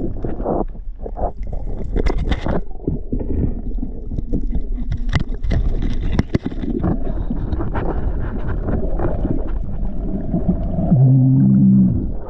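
Underwater sound through an action camera's housing: a muffled rumble of water, with bubbling and scattered sharp clicks and knocks. About a second before the end, a loud low droning tone lasts about a second as the diver comes up through the surface in a rush of bubbles.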